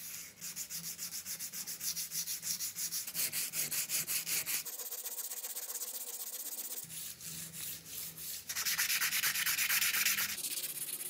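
Sandpaper rubbed by hand in quick back-and-forth strokes over a rusty steel knife blade, scouring off rust. Near the end the paper is worked around the knife's tang, and the rubbing is louder.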